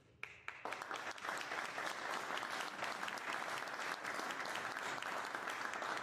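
A small audience applauding, many hands clapping together. It starts suddenly just after the beginning and keeps up at a steady level.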